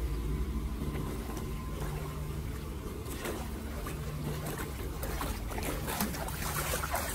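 Shallow muddy floodwater splashing and sloshing as bare feet in flip-flops wade and stir through it, over a steady low background noise. The splashes come thicker from about three seconds in.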